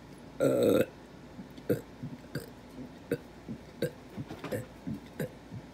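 A person burping repeatedly on purpose: one long, loud burp about half a second in, then a string of short, sharp burps about every two-thirds of a second.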